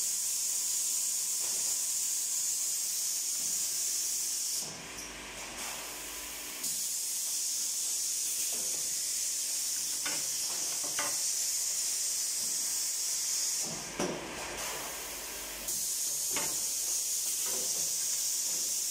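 BAS 2200 multifunction woodworking machine running with a steady high hiss that cuts out twice, each time for about two seconds, with a low rumble in those gaps. A few short knocks and clunks come from the machine working the timber.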